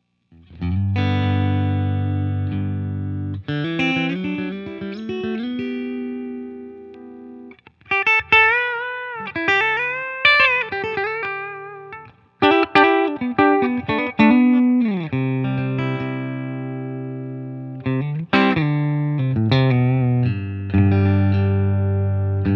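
Telecaster-style electric guitar played clean through an Oldfield Amplifiers Model 6420 combo amp. It opens with a long ringing chord, moves into single-note phrases with string bends about a third of the way in, and returns to sustained chords and short licks.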